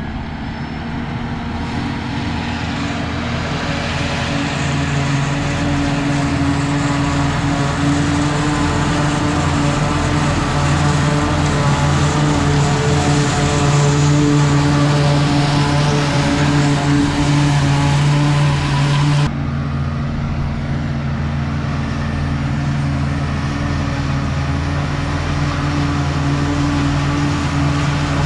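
Diesel engine of farm machinery running steadily under load, with a loud hiss of working machinery over it that cuts off suddenly about two-thirds of the way through while the engine keeps running.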